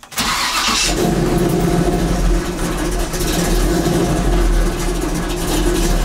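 1984 Chevy C10's carbureted engine starting: it catches at once with a loud burst in the first second, then settles into a steady idle, heard from inside the cab. The exhaust goes through mufflers the owner calls trash.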